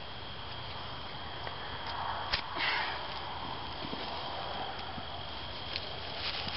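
Hands working at a hog carcass: faint rustling and handling, a sharp click a little over two seconds in, then a short breathy sniff, over a steady high whine.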